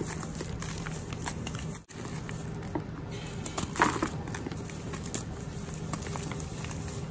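Hands crushing and crumbling dry, powdery dyed chalk chunks in a plastic bucket: a steady soft crackle and crunch of breaking pieces and sifting powder, with a few sharper crunches. The sound drops out for an instant a little under two seconds in.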